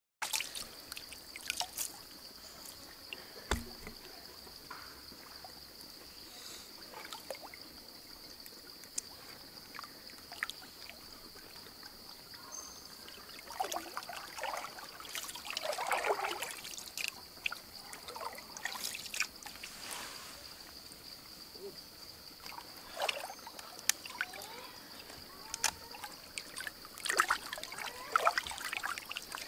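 Stream water trickling and splashing in irregular bursts, busiest midway and near the end as hands work in the river, over a steady high-pitched whine.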